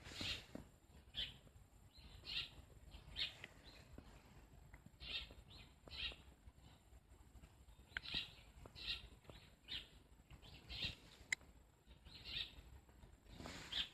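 Birds chirping: short, high calls repeating irregularly about once a second.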